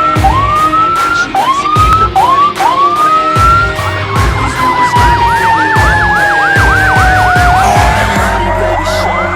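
Emergency vehicle sirens sounding loudly: four short rising whoops, then a fast yelp over a slowly falling wail, settling into a steady tone near the end.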